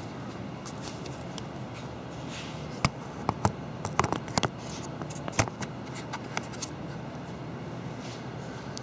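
Handling noise from someone backing away with a camera: a cluster of sharp clicks and light scrapes between about three and six and a half seconds in, over a steady low room hum.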